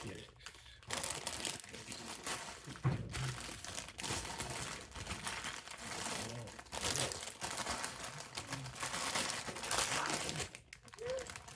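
Plastic bags of Lego pieces being handled and rustled, a near-continuous crinkling with brief pauses about a second in and near the end.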